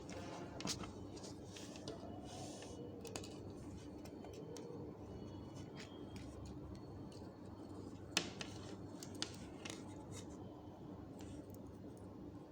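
Faint handling sounds of a multimeter and its test probes being put to a resistor's leads: scattered small clicks and light scrapes, the sharpest about eight seconds in.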